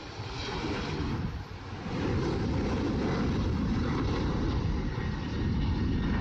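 Twin turbofan engines of an Embraer E-Jet regional airliner at takeoff thrust during the takeoff roll and liftoff. It is a dense, deep rumble that grows louder about two seconds in and then holds steady.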